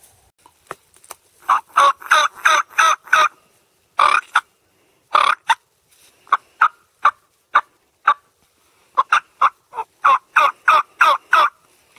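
Turkey mouth call blown by a hunter, giving hen yelps to draw toms: a quick run of about seven yelps, a few spaced single yelps, then another run of about eight.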